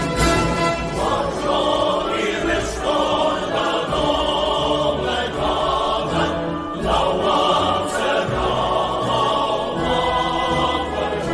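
A choir singing a national anthem over instrumental backing.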